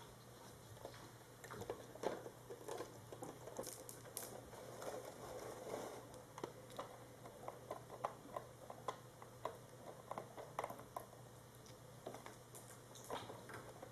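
Kittens moving about: soft, irregular taps and scuffles, a few a second at times, over a faint steady hum.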